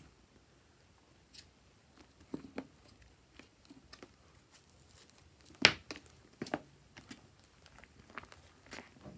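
Thick fluffy slime being stirred, lifted and pressed with a plastic spatula and by hand in a plastic tub: scattered short sticky squelches and pops at irregular intervals, the loudest a little past halfway.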